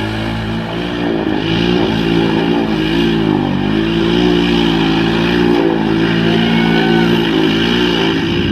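ATV engine running hard, its pitch rising and falling as the throttle is worked.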